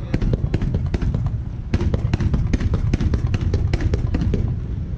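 Fireworks fired in quick succession: a rapid, irregular run of sharp launch bangs over a low rumble.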